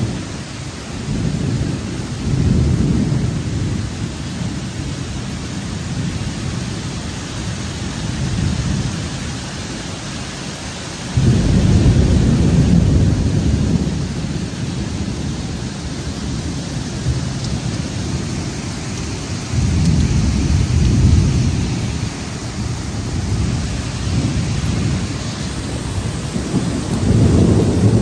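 Heavy rain falling steadily, with deep rolls of thunder rising and fading several times; the loudest rumble starts suddenly about eleven seconds in and lasts a few seconds.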